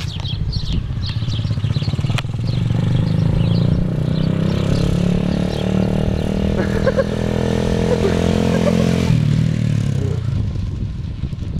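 Small motorcycle engine running as the homemade bike rides along a dirt road, growing louder from about two and a half seconds in and dropping to a lower note around nine seconds in as it passes. Birds chirp during the first few seconds.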